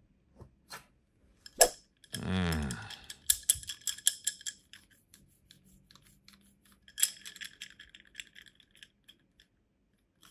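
Plastic children's paintbrushes clicking and rattling against each other in the hands, in two runs of rapid clicks. About two seconds in, a loud tone that slides down in pitch lasts under a second.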